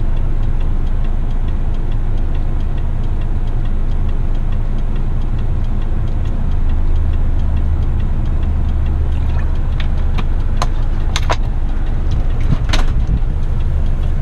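Heavy rigid truck's diesel engine running steadily, heard from inside the cab as a low drone, with a few sharp clicks or knocks near the end.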